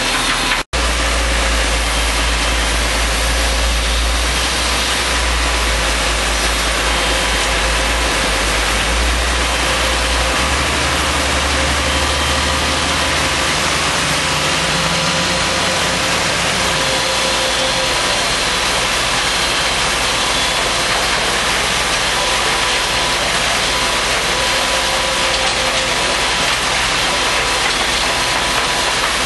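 T5 mobile soil screener running steadily, its diesel engine and screening machinery making a continuous mechanical din. The sound cuts out for an instant just under a second in, and a deep rumble underneath eases around the middle.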